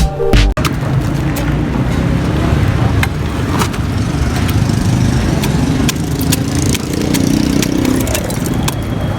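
Street noise with motor traffic running steadily and scattered sharp knocks.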